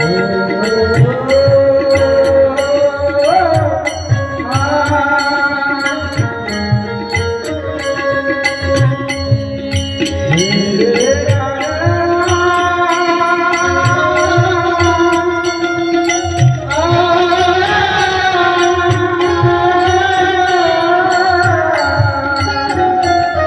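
Marathi devotional kirtan: a male singer draws out long melodic phrases that slide up into held notes. Steady drum strokes and sharp, evenly spaced small hand-cymbal clashes keep the rhythm under him.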